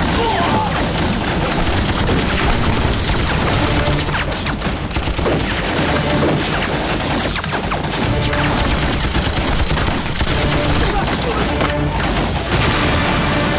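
Battle sound effects: steady volleys of rifle fire, with shots overlapping one another, and explosions mixed in.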